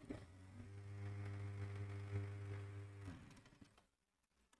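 Industrial single-needle sewing machine stitching a seam in shirt fabric: a faint steady motor hum that starts about half a second in and runs for about two and a half seconds, then winds down and stops about three seconds in.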